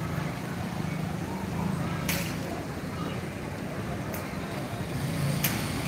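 Night-time city street ambience heard from above: a steady low hum of vehicle engines with faint voices, and a few sharp clicks or knocks about two, four and five and a half seconds in.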